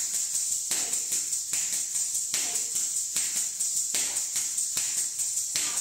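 Kathak tatkar footwork: bare feet stamping on a hard floor in a steady beat of about three stamps a second, with ghungroo ankle bells jingling on every stamp. Each stamp has the heel struck hard to give a sharp sound.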